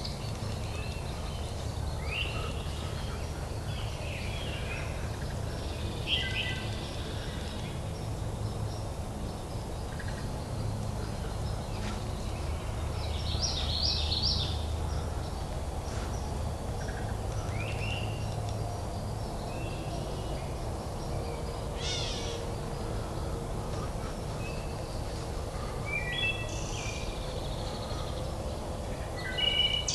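Several wild birds calling in woodland: short chirps and quick trills come every second or two, some overlapping, over a steady low background rumble.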